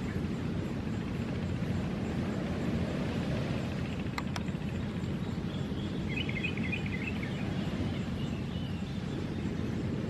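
Outdoor ambience: a steady low rumble of wind or distant surf, with a small bird twittering briefly near the middle and two faint clicks just before it.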